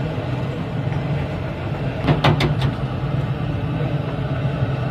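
Steady low roar of a gas burner fed from a cylinder, heating a pot of oil with chips deep-frying in a wire basket. A few quick metallic clicks come about two seconds in.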